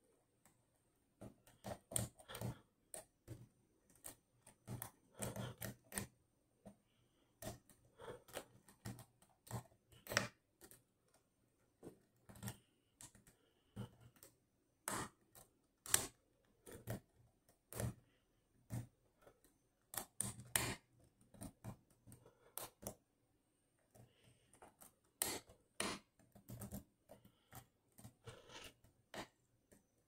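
Light, irregular metallic clicks and scratching from a lock pick working the pin stack of a Dom Plura cylinder under a tension wrench, setting the pins one at a time.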